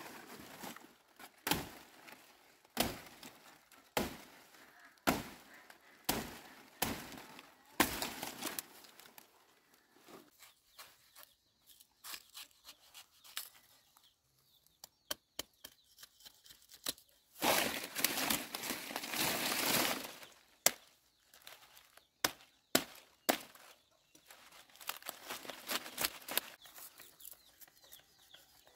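Machete chopping into a banana plant's stalk to cut down a bunch of bananas, a stroke about every second for the first eight seconds. Later, scattered small knocks and a couple of seconds of rustling.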